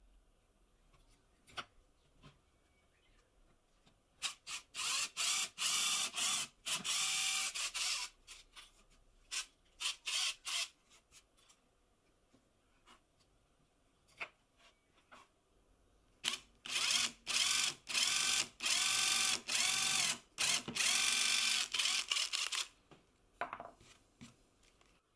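Small power drill with a thin twist bit boring pilot holes into plywood, run in short trigger bursts. There are two spells of drilling, each a run of starts and stops, with the motor's whine rising and falling.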